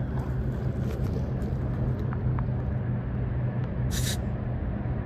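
An engine or motor running steadily with a low hum, and a short hiss about four seconds in.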